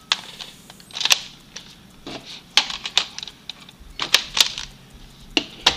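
Hard plastic Nerf attachments (a scope and a barrel extension) clicking and snapping onto a Nerf Stryfe blaster's rail and muzzle: a run of irregular sharp plastic clicks, some in quick pairs, with handling rattle between them.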